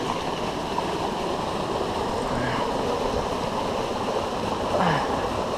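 River current rushing steadily past the bank.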